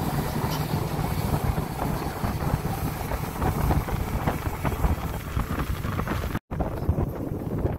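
Boston Whaler's motor running underway, a steady low drone mixed with wind buffeting the microphone. The sound cuts out for a split second about six and a half seconds in.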